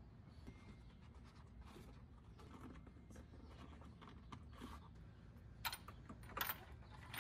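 Hand tools and small metal parts being handled, with faint scattered clicks and scratches. Sharper clicks and clinks come from about five and a half seconds in.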